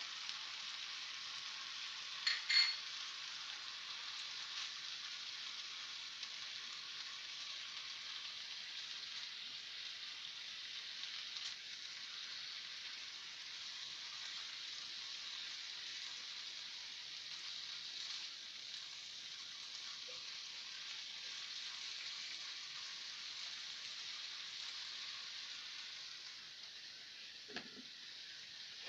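Diced potato, onion and beef sizzling steadily in a frying pan while being stirred with a spatula, with a couple of sharp clinks about two and a half seconds in.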